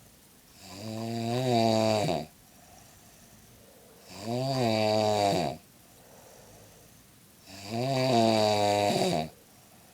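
An elderly woman snoring loudly in her sleep: three long snores, each rising and then falling in pitch, coming about every three and a half seconds, with quiet breaths between.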